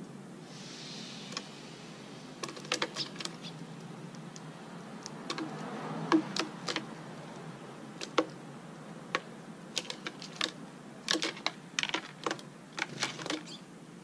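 Sparrows pecking at grain and hopping on concrete and on a plastic-bottle trap: irregular small, sharp clicks and taps, more frequent in the second half.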